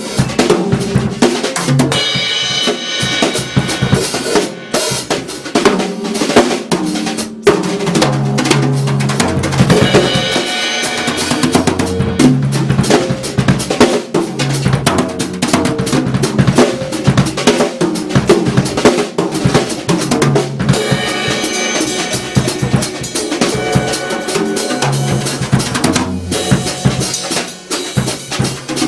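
A drum kit played without pause: a dense run of snare and bass drum hits with rimshots and fills, and a low part repeating underneath.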